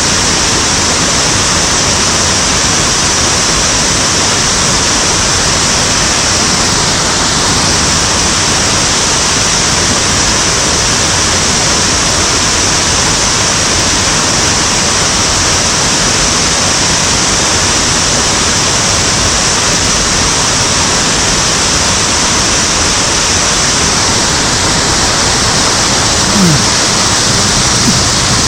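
Loud, steady rush of water falling down a waterfall in a mountain stream.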